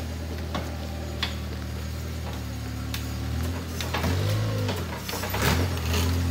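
Engine of a red front-loader tractor running steadily, then revving up and down a couple of times from about four seconds in as the loader works.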